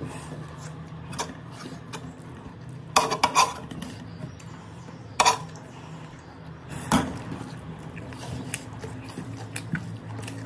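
A metal spoon clinking against a metal dinner plate: a quick cluster of clinks about three seconds in, then single clinks about five and seven seconds in.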